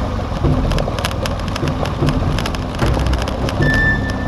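Adventure motorcycle engine running on a loose gravel track, with many short clicks and crackles from stones under the tyres over a steady rush of wind noise. A held musical note comes in near the end.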